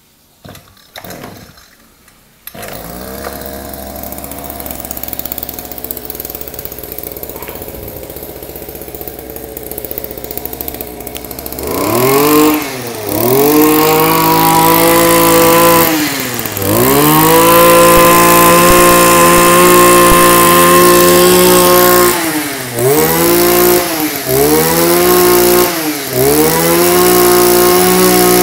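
Kioritz RME2300 brush cutter's 23cc two-stroke engine starting about two seconds in and idling. About twelve seconds in it begins revving repeatedly: long runs held at full throttle, then several short throttle blips near the end.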